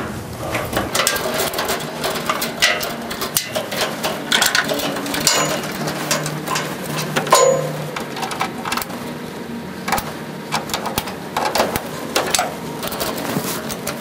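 Network cables being handled and routed, with scattered plastic clicks and taps as RJ45 plugs are pushed into the server's Ethernet ports.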